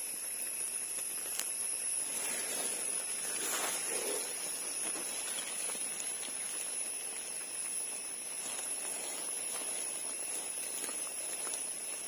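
Steady hiss of wet-forest background with a constant high-pitched whine, and faint scraping ticks from a knife blade cleaning soil off a yellow amanita mushroom's stem.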